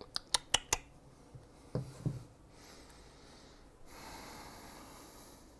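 Four quick light clicks of a handheld device being handled close to the microphone, then two short soft low sounds, and a faint breath-like hiss near the end.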